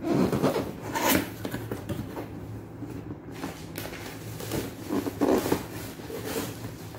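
Cardboard box being opened by hand: the lid slides and rubs against the box in a few scraping strokes, the loudest right at the start, about a second in, and around five seconds in.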